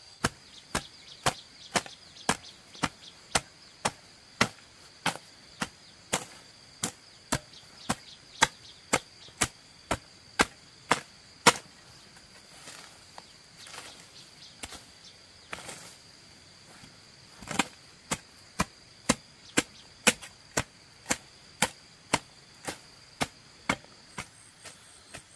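Hand hoe chopping into grassy turf and soil: sharp strikes about two a second, pausing for a few seconds midway before the chopping starts again. A steady high insect buzz runs underneath.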